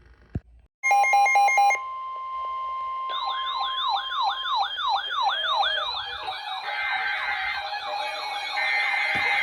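Electronic emergency-alert tones: a brief burst of rapidly switching beeping tones about a second in, then a steady tone, then from about three seconds in an electronic siren sweeping up and down about three times a second, with more siren tones joining and growing louder near the end.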